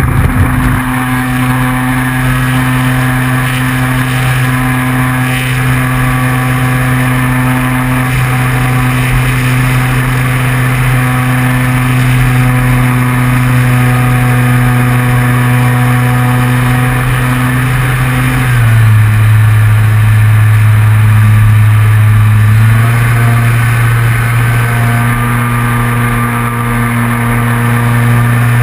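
RC model airplane's motor and propeller running at high throttle, a loud steady hum close to the nose-mounted camera. About two-thirds of the way through the pitch drops as the throttle is eased, then rises again.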